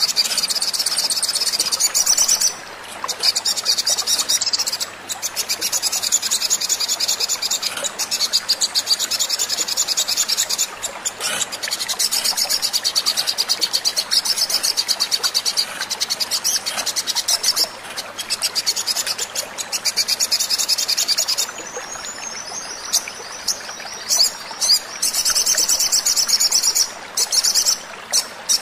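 Sogon (brown-throated sunbird) song: long runs of fast, high, chattering trills broken by short gaps, with a quieter stretch about three quarters of the way through. It is a lure recording meant to set caged sunbirds singing.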